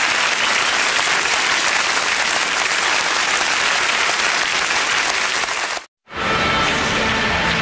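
Studio audience applauding. About six seconds in it cuts off abruptly, and after a split second of silence music starts.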